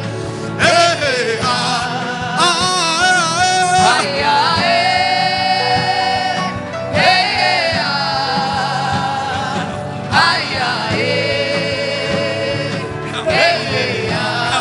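Gospel worship music: a single voice sings long held notes with a wide vibrato over a steady accompaniment, in phrases of two to three seconds each.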